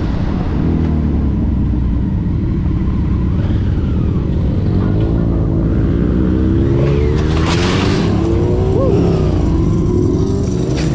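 Several motorcycle engines running with wind noise on a helmet camera, while the bikes slow at a junction. The engines rise and fall in pitch as the riders throttle on and off, and a short rush of hiss comes about seven seconds in.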